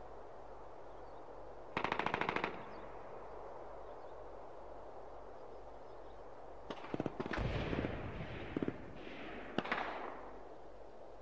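Machine-gun fire in rapid bursts: one short burst about two seconds in, then several more bursts and scattered shots from about seven to ten seconds in, over a low steady hum.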